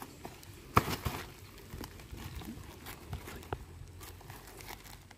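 Wire-mesh cage trap and its metal hooks clinking and rattling as they are handled by hand, a sharp click loudest about a second in, with scattered smaller clicks and rustling of dry leaves.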